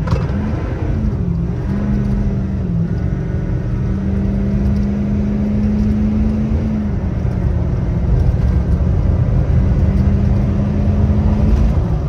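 A 2015 Ford F-250's 6.7 Powerstroke V8 turbodiesel accelerating hard at full throttle, heard from inside the cab. The automatic transmission shifts up through the gears, and the engine's pitch drops back at each shift over a heavy low rumble. The engine is running strongly on its freshly replaced fuel system.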